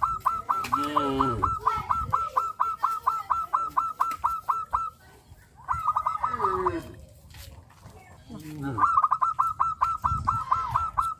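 Farm birds calling: a fast, even run of short, high calls, about four or five a second, that stops about halfway and starts again near the end, with lower honking calls now and then.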